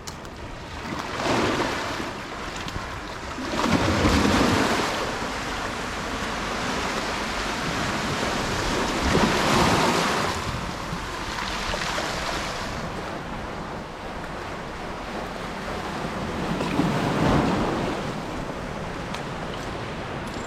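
Sea waves breaking on the shore, one surge of surf every few seconds, with the loudest breaks about four and ten seconds in. Wind buffets the microphone.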